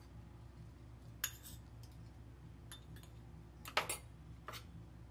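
A metal spoon clinking lightly against a small steel bowl and a ceramic plate while ground pepper is spooned onto prawns: a handful of scattered clinks, the loudest a quick double clink late on, over a low steady hum.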